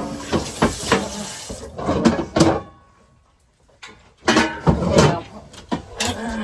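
Pots and dishes being handled and clattering at a kitchen sink and cupboards, in two spells with a short quiet pause about three seconds in.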